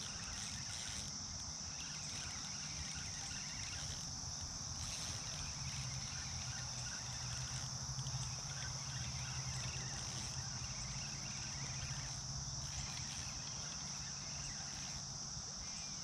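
Chorus of insects, likely crickets, making a steady, unbroken high-pitched trill.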